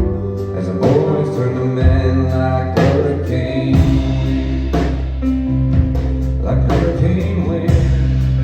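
A band playing a song live, with singing over guitar and a steady, held bass line, and a few sharp strikes now and then.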